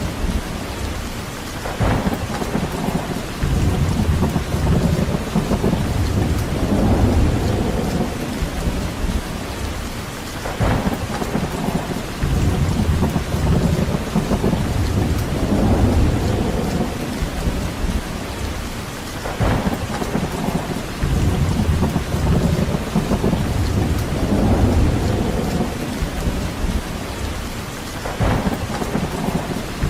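Steady heavy rain with deep, low rumbles that swell and fade every few seconds, like a thunderstorm or strong wind in trees, and a brief sharper crack about every nine seconds.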